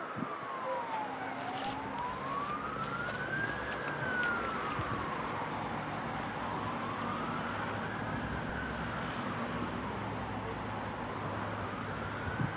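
Emergency vehicle siren wailing, its pitch slowly falling and rising, about one full cycle every four to five seconds, over a low steady hum.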